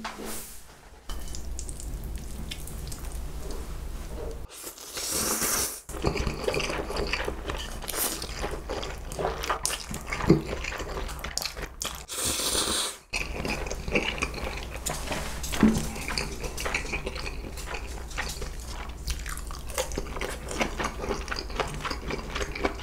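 Close-miked eating of Samyang Buldak fire noodles: chewing and wet mouth clicks, with two longer slurps about five and twelve seconds in.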